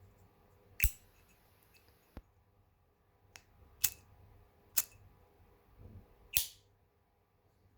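Sharp metallic clicks and clacks from a zippo-type metal lighter being handled, about six in all, four of them loud and a couple with a brief ringing ping.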